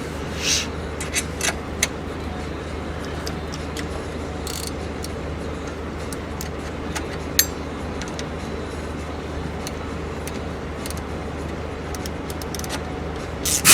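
Scattered metallic clicks and clinks of spanners and fittings being handled, over a steady low hum. At the very end a sudden loud blast of noise begins.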